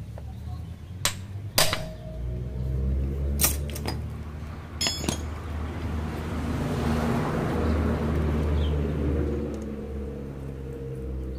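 Metal hand tools knocking and clinking against the crankcase parts of a motorcycle engine being taken apart: four or five sharp strikes in the first five seconds, one of them ringing. A steady low hum runs underneath and swells in the middle.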